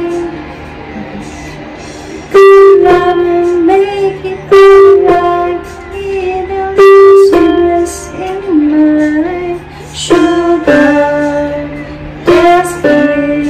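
A woman singing a slow song while accompanying herself on an electronic keyboard, the held notes and chords struck every couple of seconds.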